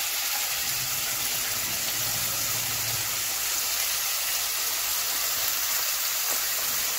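Mutton seekh kababs sizzling steadily as they shallow-fry in hot oil on a nonstick pan.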